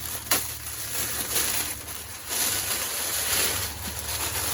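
Paper wrapping torn and crinkled by hand, a sharp rip about a third of a second in, then stretches of tearing and rustling as the taped paper is pulled apart.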